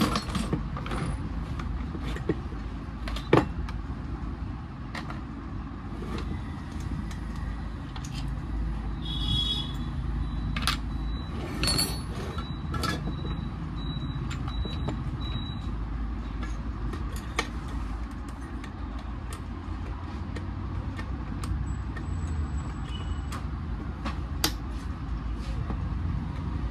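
Scattered metallic clicks and knocks of hand tools and parts as a petrol chainsaw is dismantled, with one sharper knock about three seconds in and a few short high squeaks around the middle. A steady low rumble runs underneath.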